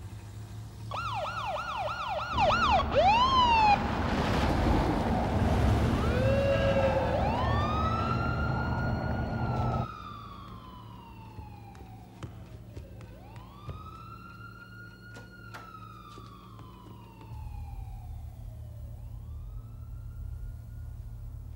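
Siren yelping in fast up-and-down sweeps, then wailing in two slow cycles that rise quickly and fall away, with a loud rushing noise underneath for the first half.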